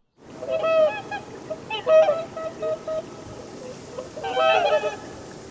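Birds calling in three clusters of short, pitched calls, about half a second, two seconds and four and a half seconds in, over a steady background hiss.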